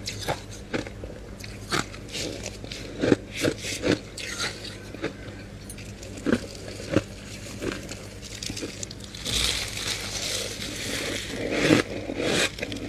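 Close-miked crunching bites of soft freezer frost, many short sharp crunches, with longer scraping stretches about nine seconds in and again near the end.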